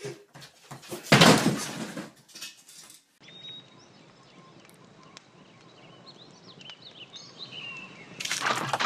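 A loud crash about a second in. Then quiet woodland ambience with songbirds chirping, and a loud noisy burst near the end.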